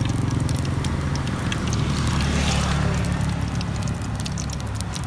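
Hot oil crackling and sizzling in a wok as skewered egg batter for telur gulung fries, with many small pops. Under it runs a louder steady low motor hum.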